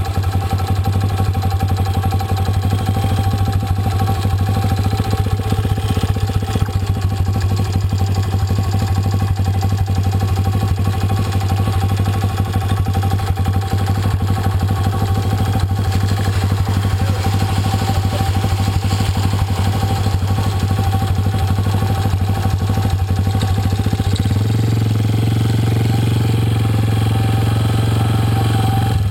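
An engine running steadily with a low hum and rapid pulsing. Its note shifts about 24 seconds in.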